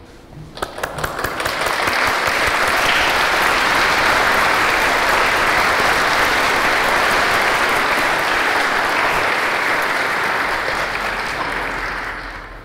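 Large audience applauding: a few scattered claps swell within a second or two into steady, dense clapping, which tapers off near the end.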